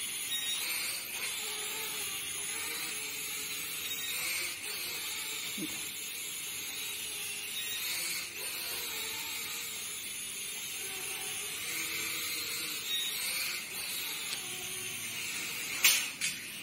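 Small toy quadcopter drone in flight, its four little motors and guarded propellers giving a steady high-pitched buzz. A short knock comes near the end.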